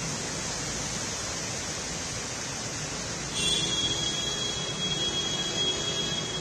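Steady rushing noise of traffic in rain on a flooded road. About halfway through it grows louder as vehicles wade through the floodwater, with a steady high-pitched tone held over it.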